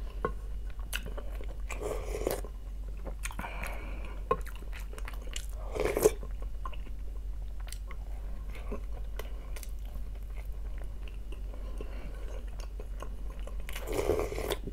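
Close-up mouth sounds of eating: chewing and biting into a soft baked pirozhok and fish soup, with many small wet clicks. There are a few louder moments, the loudest about six seconds in, and a longer sip from a wooden spoon near the end.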